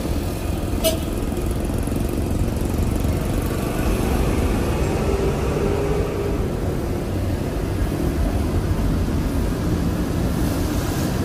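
City street traffic: motor scooters and cars passing on the road, a steady rumble of engines and tyres, with a brief sharp click about a second in.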